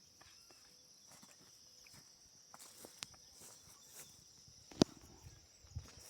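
Faint outdoor ambience: a steady high insect drone with scattered small knocks and clicks, one sharper click a little under five seconds in.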